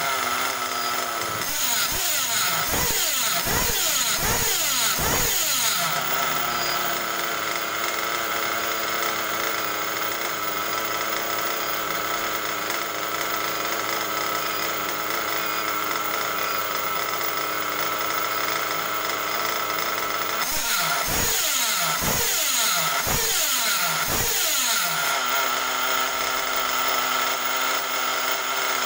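Hobao Hyper 7 1/8-scale nitro buggy engine running with its wheels off the ground. It idles steadily between two bursts of quick throttle blips, the revs rising and falling several times, once a couple of seconds in and again about two-thirds of the way through.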